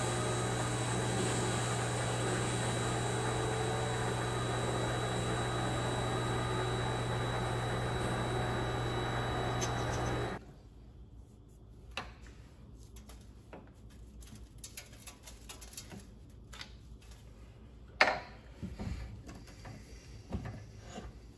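Vevor MX 400 mini lathe running with a steady hum and a thin high whine, switched off abruptly about ten seconds in. After that come scattered light clicks and a sharper knock near the end, like parts or tools being handled on the machine.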